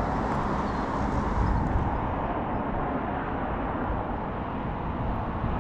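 Steady road traffic noise: cars running along a busy urban road, with no single vehicle standing out.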